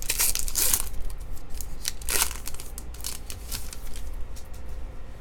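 Foil wrapper of a 2018 Bowman baseball card pack crinkling and tearing as it is opened, in short bursts, loudest in the first second and again about two seconds in.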